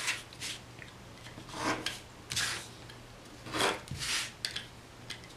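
Craft knife blade cutting fabric flush along the edge of a cloth-covered cardboard piece, in a series of short rasping strokes, about six of them.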